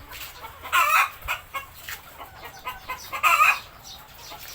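A flock of laying hens clucking, with two louder wavering calls, one about a second in and one a little past three seconds. Many short taps sound underneath.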